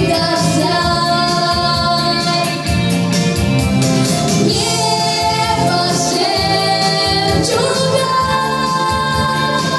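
A girl singing a children's pop song into a microphone over a backing track with a steady beat, holding long notes.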